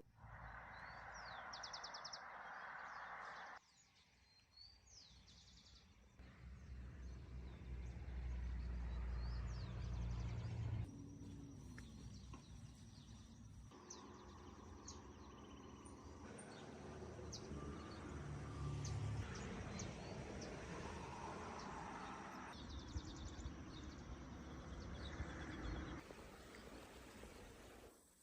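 Outdoor ambience in several short cuts: wind rumbling on the microphone, with birds chirping.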